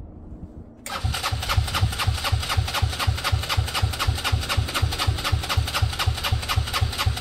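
Benelli Velvet scooter's engine being turned over on its electric starter, starting about a second in: an even rhythm of about five or six compression beats a second that never speeds up, the engine cranking without catching despite having a spark again.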